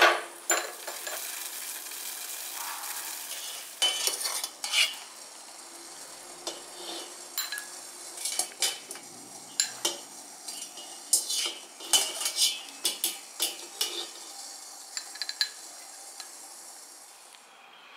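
Water boiling in a stainless steel pot of blanching beef balls, a steady bubbling hiss for the first few seconds. Then a wire-mesh strainer scoops the balls out, with repeated metal clinks and knocks against the pot.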